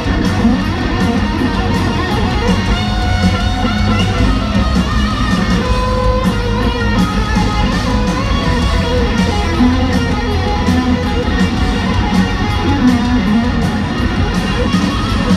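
Live hard-rock band playing loudly in an arena: electric guitars over bass guitar and a steady drum beat, with no singing.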